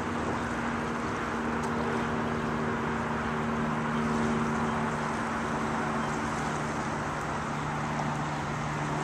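Engine running steadily: a low drone holding a few steady pitches, the higher one fading and a lower one growing stronger about halfway through, over a faint outdoor hiss.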